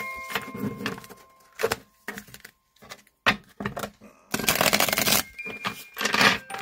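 Tarot cards being handled and shuffled: a run of light clicks and card snaps, then a longer rustle about halfway through and another near the end as the deck is spread across the table. Soft chiming music plays underneath.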